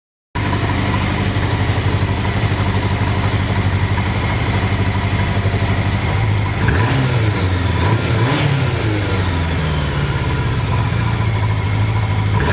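1993 Honda Nighthawk 750's four-cylinder engine idling steadily, then revved up and back down a couple of times from about seven seconds in.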